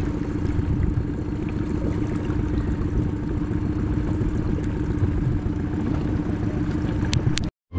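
Small Suzuki outboard motor on an inflatable dinghy running steadily under way, a continuous mid-pitched drone. The sound cuts out abruptly near the end.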